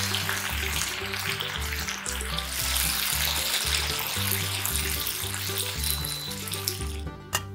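Pork-wrapped asparagus rolls sizzling in a frying pan as the seasoning sauce bubbles and boils down, over background music with a steady bass line. The sizzling cuts off near the end, leaving only the music.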